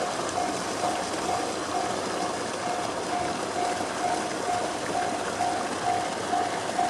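Japanese railway level-crossing alarm ringing with the JR-standard electronic bell sound: one tone repeating at an even pace, a little over twice a second. A steady rushing noise runs underneath.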